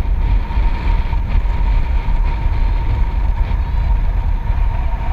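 Wind rushing over the microphone of a paraglider's harness-mounted camera in flight: a loud, steady rumble, with a faint steady high tone throughout.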